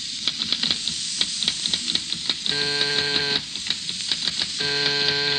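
Radio-drama sound effects: a typewriter clacking in quick, irregular keystrokes over a steady frying sizzle. A door buzzer sounds twice, each time for about a second, the second time near the end.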